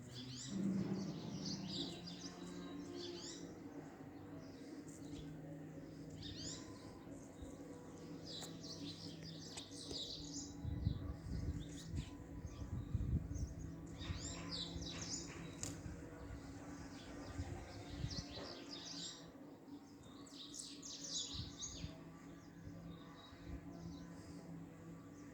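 Small birds chirping in quick, high-pitched clusters that come every few seconds, over a steady low hum.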